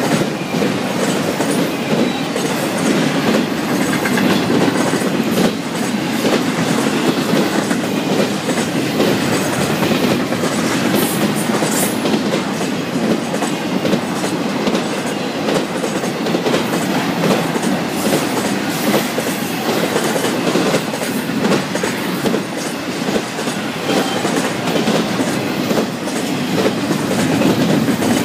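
Florida East Coast Railway freight train's cars rolling past, autoracks and then trailer flatcars and double-stack container cars: a steady, unbroken rumble of steel wheels on rail with faint scattered clicks.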